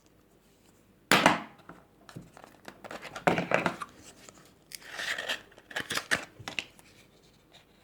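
Sticker and seal being peeled off a Zippo lighter: crinkling, tearing noises in four or so bursts, the first about a second in being the loudest.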